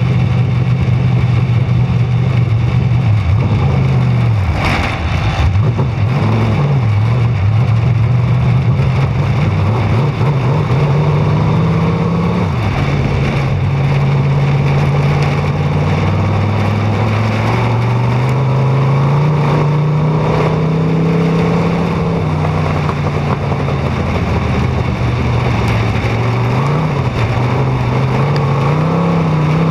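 Dirt-track race car engine running hard on practice laps. The engine note climbs on the straights and drops off as the driver lifts for the turns: a dip about four seconds in and another in the second half, with rush over a roof-mounted camera behind it.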